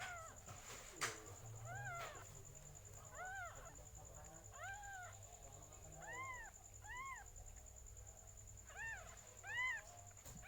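A cat mewing repeatedly in short, high calls that rise and fall in pitch, about one every second, during a birthing. A couple of faint clicks come near the start.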